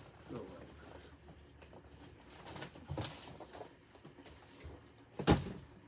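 Cardboard and plastic packaging of boxed collectible figures being handled, with scattered light rustles and clicks and one sharp knock about five seconds in.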